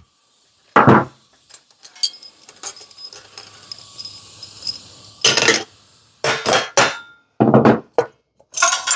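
Metal hand tools and engine parts clinking and clanking: faint ticks while the last cylinder head bolt is worked out, then several loud, sharp metal clanks in the second half as the Briggs & Stratton Intek's cylinder head is handled and pulled off the block.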